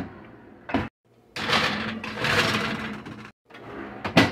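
Electric range's oven being loaded: a noisy scraping stretch of about two seconds as the pan goes in, then the oven door shutting with a sharp clank near the end.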